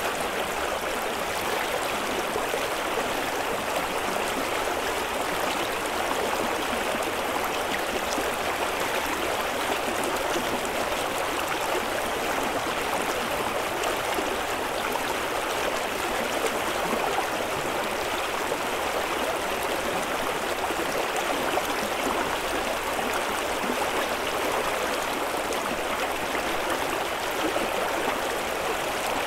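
Whitewater river rapids rushing, a steady, even noise of churning water.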